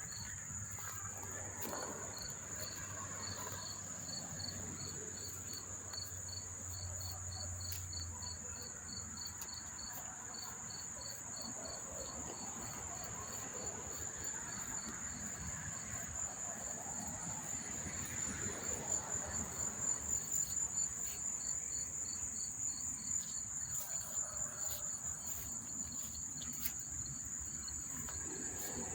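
Chorus of many crickets chirping: a continuous high trill, with a slower, regular chirp of about three a second beneath it.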